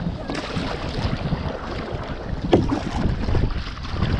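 Wind buffeting the microphone over water lapping and splashing against a plastic kayak's hull on choppy sea water, with one brief louder sound about two and a half seconds in.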